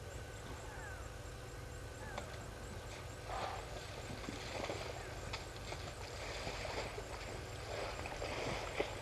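African elephants sloshing and splashing in a mud wallow: irregular wet splashes and slaps of mud starting about three seconds in, over a steady low background hum. A bird gives a few short falling whistles in the first couple of seconds.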